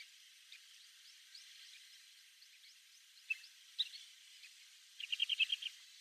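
Kentish plover calling: two short, sharp notes about a second apart, then a quick rattling trill of about eight notes near the end, over a faint hiss.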